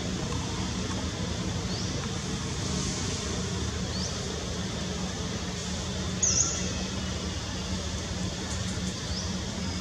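Steady low outdoor hum with four brief, high-pitched chirps spread through it; the third, about six seconds in, is the loudest.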